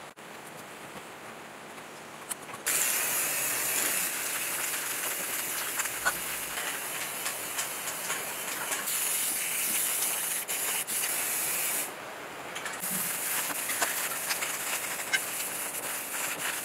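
Aerosol spray-paint can hissing in two long sprays, starting about three seconds in, with a short break about two-thirds of the way through.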